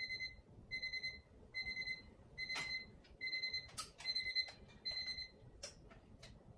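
Electronic alarm beeping: seven short, evenly spaced beeps of one high tone, a little more than one a second, which stop about five seconds in as it is switched off. Soft knocks and rustling of bedding sound around the time it stops.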